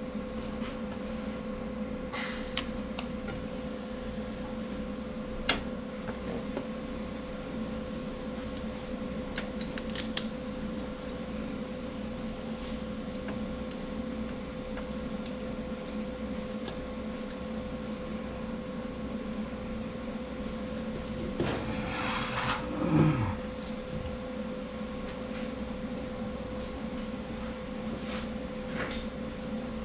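Steady machine hum with a fixed tone, broken by a few sharp clicks and a brief louder clatter with a falling tone about 22 seconds in.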